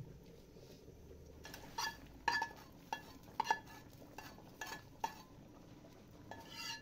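Metal spoon and lid clinking against a metal cooking pot as curry is stirred: about ten sharp, irregular clinks with a short ring, starting about a second and a half in.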